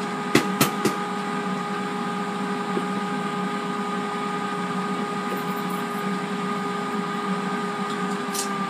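Steady hum of an air fryer's fan running, with a few short clicks about half a second to one second in.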